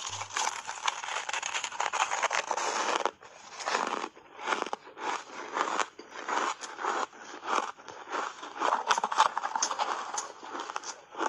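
Close-up chewing of a mouthful of shaved ice coated in matcha milk powder: crunchy crackling, continuous for about the first three seconds, then after a brief gap repeated chewing crunches about one to two a second.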